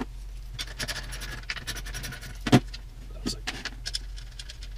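Light metallic clicking and rattling of drum hardware being handled during tom disassembly, with one louder knock about two and a half seconds in and a few scattered clicks after.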